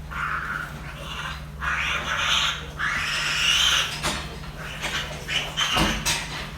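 Piglets squealing in a run of harsh, noisy bursts, a few long ones and then shorter ones, over a steady low hum.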